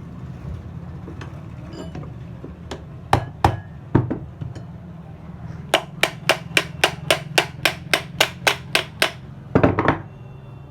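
Hammer blows on metal, knocking the ring (kada) out of a ceiling fan's housing: a few separate strikes, then a fast run of about four blows a second for some three seconds, then two more near the end.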